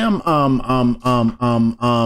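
A man's voice chanting wordless syllables on one low, steady pitch, repeated about three times a second, like a droning mantra.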